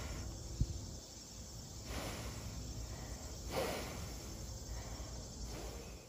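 Quiet outdoor background of low rumble and hiss, with a soft knock about half a second in and two short rustling noises around two and three and a half seconds in.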